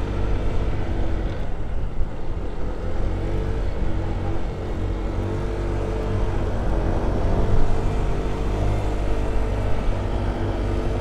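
Honda ADV 150 scooter's single-cylinder engine running steadily under load while climbing a steep grade.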